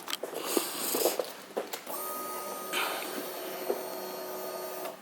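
Kawasaki ZX-10R fuel pump priming after the ignition is switched on: a few clicks and knocks, then a steady whine with several pitches for about three seconds that cuts off suddenly.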